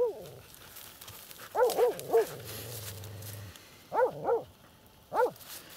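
Laika hunting dog barking at a burrow entrance, six short high barks in three quick groups, a dog working a den where it scents game.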